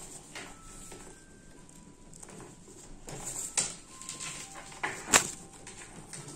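Macaw shifting about on the edge of a wooden board: scattered small taps and feather rustles, with one sharp click about five seconds in and a few faint short peeps.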